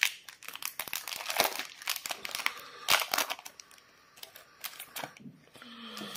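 Foil trading-card booster wrapper being torn open and crinkled in the hands, a dense crackling for the first few seconds, then quieter rustling as the cards are slid out of the wrapper.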